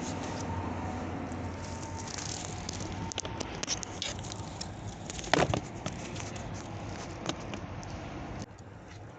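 Scattered light clicks and crackles of plastic parts being handled during a cabin air filter change, with one loud knock about five seconds in, over a steady low hum.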